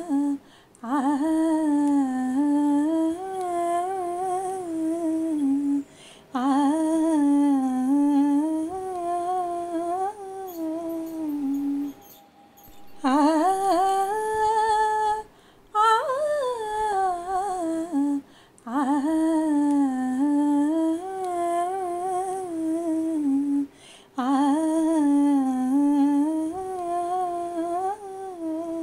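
A woman humming a slow, wavering wordless melody in phrases of a few seconds each, with a short pause for breath between phrases.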